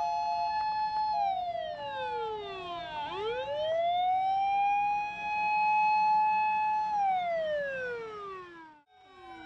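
Sirens of fire-service emergency vehicles: a wailing siren holds its high note, falls, climbs back up and holds again, then falls away, while a second siren alternates between two tones underneath in the first part. Near the end the sound cuts out briefly and several sirens resume, overlapping.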